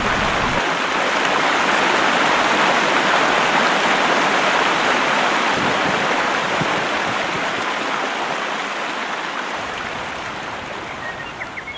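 Rushing whitewater of a river rapid, a steady hiss of churning water that fades gradually over the last few seconds.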